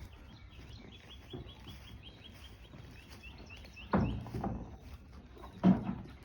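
A bird chirping in a quick run of short, high, even chirps, several a second, through the first half. Two louder sudden sounds break in about four seconds in and again near the end.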